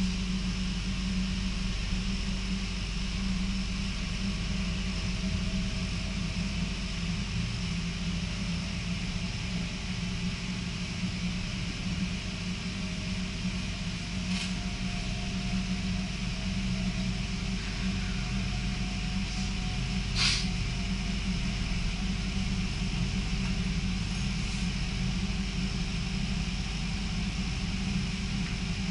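Electric passenger train running at speed, heard from inside the carriage: a steady rumble with a faint whine that rises slightly in pitch. Two brief clicks about halfway through, the second one louder.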